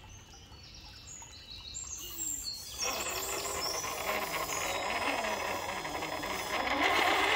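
Birds chirping, then about three seconds in the RC crawler's small electric winch motor and drivetrain start a loud, fast gear whir as the Traxxas Pro Scale winch reels the TRX-4 up the bank, getting louder near the end.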